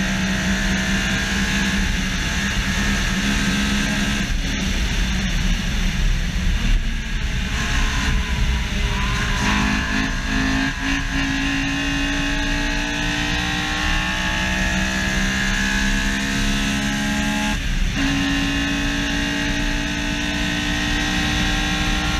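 Honda S2000's F20C four-cylinder engine running hard on track, its note climbing steadily in pitch as the car pulls through the gears. The note wavers between about four and ten seconds in, and near the end it breaks briefly at a gear change and climbs again, over steady wind and road noise.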